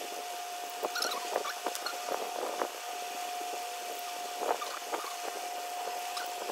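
Scattered clicks and clinks of metal air fittings and hand tools (pliers, wrench) being handled and tightened while an air filter-regulator is fitted to an air compressor. A steady high tone runs underneath.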